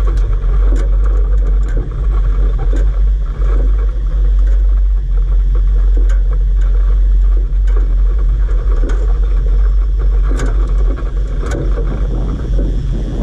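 Toyota four-wheel drive driving over a rough dirt track: a loud, steady rumble with frequent irregular clatters and knocks as the vehicle jolts over the bumps.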